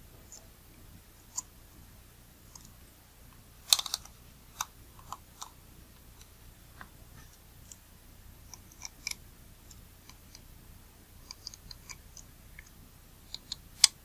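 Small, sharp, irregular clicks and taps of metal lens parts and small tools being handled while a camera lens's aperture mechanism is nudged into position, with a loud cluster about four seconds in and another sharp click near the end.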